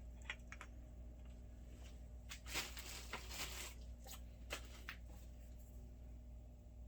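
Small clicks and a short scraping rustle as an anamorphic scope is handled and turned in a metal lens clamp, the busiest stretch about two and a half to four seconds in, over a low steady hum.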